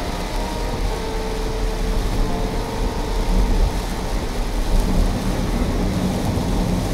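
Steady low rumble and hiss of a car driving on a rain-soaked road, heard from inside the cabin: tyre noise on wet asphalt. A few faint held musical notes sound over it in the first few seconds.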